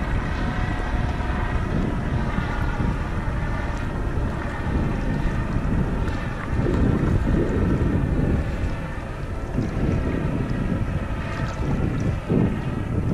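Wind buffeting the microphone and open-sea water moving around a kayak, in uneven swells, with a faint steady drone running underneath.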